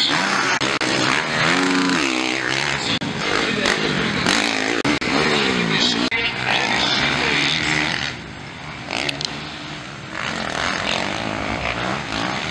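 Motocross dirt bike engines revving hard, their pitch climbing and dropping again and again with the throttle and gear changes. The sound is loudest for the first eight seconds, then drops back somewhat.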